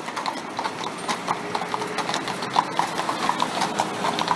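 A horse pulling a carriage over cobblestones, its hooves clip-clopping in a quick, uneven run of sharp strikes.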